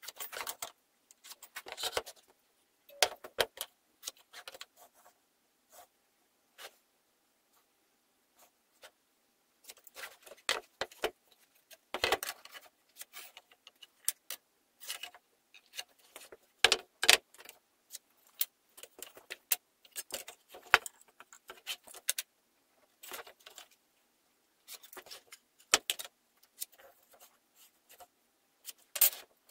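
Irregular clicks, taps and light scrapes of a steel ruler and a metal try square being set down on and slid across wooden boards, with the boards being shifted on the bench.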